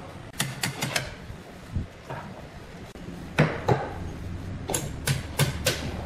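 Sharp knocks in quick pairs and threes, like hammer blows on wood or metal, over a low steady hum.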